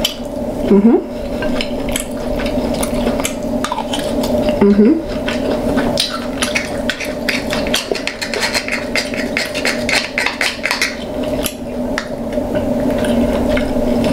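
King crab claw shells being cracked and picked apart, with many small clicks, cracks and clatters of shell and utensils against a plate, over a steady low hum. Two brief vocal sounds about one second and five seconds in are the loudest moments.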